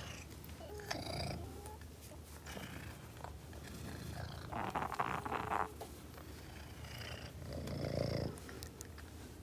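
Domestic cat purring steadily, with a brief louder noise about five seconds in.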